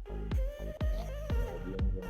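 Electronic dance music with a thumping kick drum about twice a second under steady bass and synth chords. A wavering held melody line rides over it in the first second or so.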